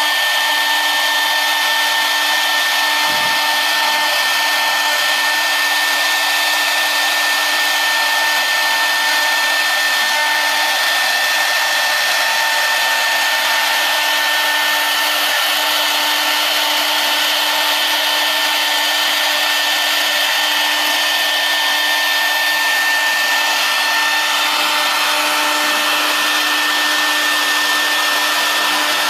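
Philicam FLDM1325 CNC router's spindle running at high speed while its bit carves a 3D relief into wood: a steady whine with constant high tones over a hiss.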